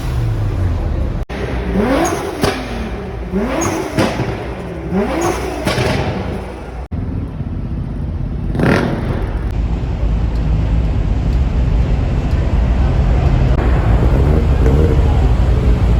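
Loud car exhaust revved three times in quick succession, each rev sweeping up and dropping back, followed by a single sharp rev blip and then a deep, steady exhaust rumble that grows a little louder toward the end.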